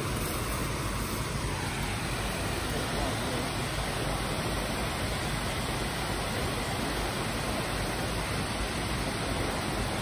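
Steady rush of water spilling over a dam's spillway and churning in the river below.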